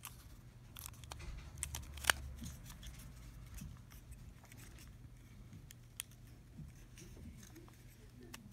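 Plastic clicks and handling noise from a toy sonic screwdriver being worked in the hands, with one sharp click about two seconds in and another, smaller one about six seconds in.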